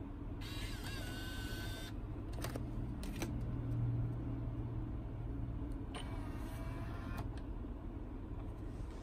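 The motorized tilt-screen and disc mechanism of a Toyota NDDN-W58 car navigation head unit whirring in two short runs, about a second in and again around six seconds in, with a couple of button clicks between. A steady low hum runs underneath.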